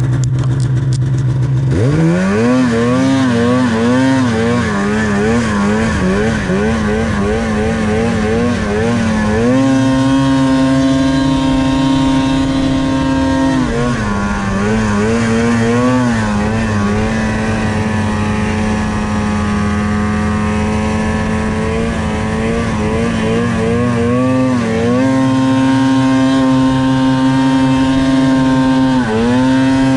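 Polaris Pro RMK 800 snowmobile's two-stroke twin engine under the rider. It runs low for the first couple of seconds, then the throttle snaps open and the revs jump. The pitch wavers up and down as the throttle is worked, then holds steady and high for long stretches, with brief dips about halfway and near the end, as the sled is ridden hard and lifted into a wheelie.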